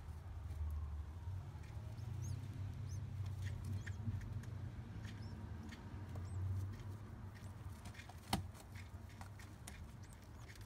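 Faint, high-pitched peeps from a newly hatched pigeon squab, a few short squeaks that rise and fall, over light scratchy clicks from the nest, a sharp click a little after 8 seconds, and a low rumble underneath.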